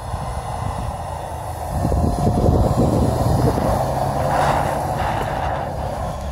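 Subaru WRX's turbocharged flat-four engine revving hard as the car drifts sideways through snow, its wheels spinning and spraying snow. It gets louder about two seconds in and holds a steady high drone, with a rush of snow spray near the middle.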